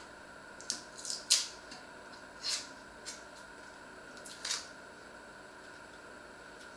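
Hand-held vegetable peeler scraping off peel in short strokes, about six in the first five seconds, the loudest about a second and a half in, over a faint steady hum.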